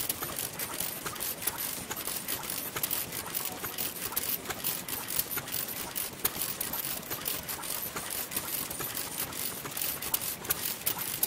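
Old stationary kerosene engines running: a Noda engine and others beside it make a dense, irregular clatter of mechanical clicks and knocks.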